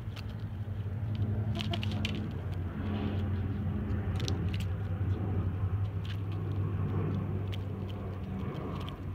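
Chickens pecking and scratching at dry dirt close by, giving irregular sharp taps and crackles, over a steady low hum.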